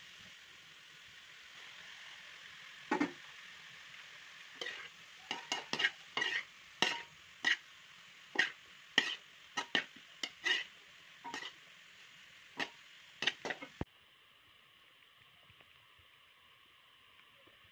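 Metal slotted spatula stirring and scraping vegetable fried rice in a pan, over a steady frying sizzle; sharp clinks of metal on the pan come about twice a second, and everything cuts off suddenly near the end, leaving only a faint hiss.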